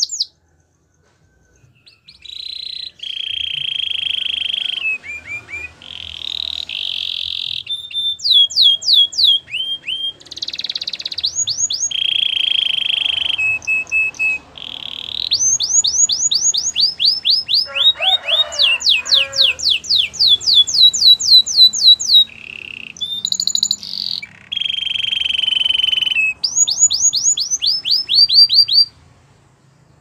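Canary singing a long, loud song: fast trills of rapidly repeated rising notes alternate with steady buzzing rolls, with a lower chattering stretch midway. It begins after about two seconds of silence and stops shortly before the end.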